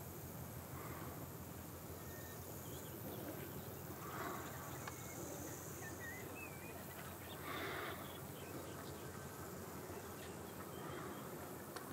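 Faint steady low rumble of a large container ship passing by, under an even hiss, with a few short, faint wavering chirps about five to seven seconds in.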